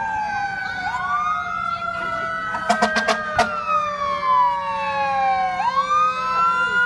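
Several emergency-vehicle sirens wailing at once, their pitches rising and falling out of step with each other, with a few sharp clicks about three seconds in.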